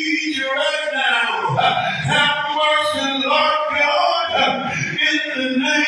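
A man's voice in loud, drawn-out, half-sung chanting without clear words, as in fervent prayer.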